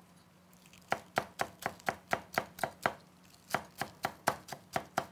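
Chinese cleaver chopping green onions into shreds on a wooden cutting board: quick, even chops about four a second, starting about a second in, with a short pause near the middle before the chopping resumes.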